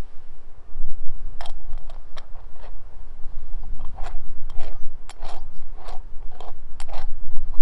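Small aluminium moka pot being handled and screwed together: a run of sharp metallic clicks and short scrapes starting about a second and a half in, over a steady low rumble.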